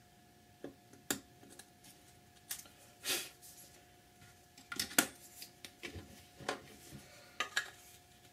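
An X-Acto hobby knife scraping and trimming a resin model-kit part, with the small resin parts clicking and tapping as they are handled and test-fitted: a string of irregular light clicks and brief scrapes, the sharpest about five seconds in.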